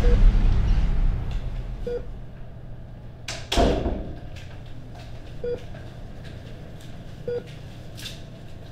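Hospital patient monitor beeping about once every two seconds while background music fades out over the first couple of seconds. One short, loud knock-like sound comes about three and a half seconds in.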